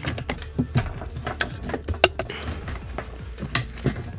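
Plastic fuel hose fitting being worked off a fuel filter housing by hand: a string of irregular clicks and knocks, with one sharp click about two seconds in.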